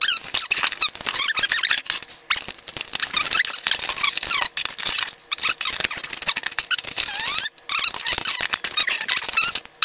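Clear plastic packaging of a Pokémon trading-card tin squeaking and crackling as it is pulled and handled, with many short, high squeaks and clicks.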